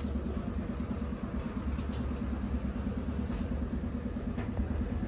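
A motor runs steadily with a low, fast-pulsing hum, with a few light metallic clicks from brake pads being seated in the caliper bracket.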